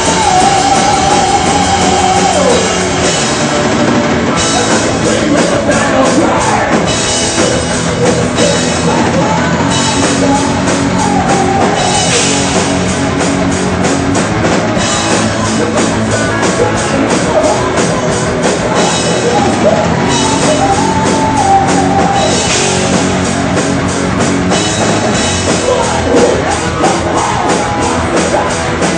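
Heavy metal band playing live: distorted electric guitars, fast, even drumming with cymbals, and a male singer's vocal line, with a held high note at the start.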